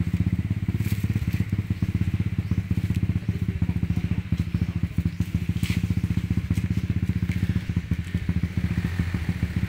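Dirt bike engine idling steadily, a low, even throb with no revving.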